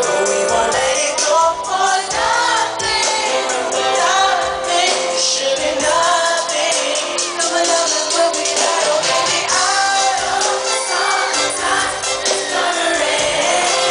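Live pop/R&B concert music over an arena sound system: a male lead singer with band accompaniment, singing continuously.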